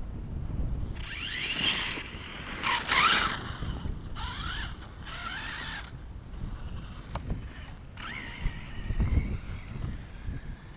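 Radio-controlled monster truck's motor whining in rising and falling sweeps as it speeds up and lets off, several times, over wind rumbling on the microphone.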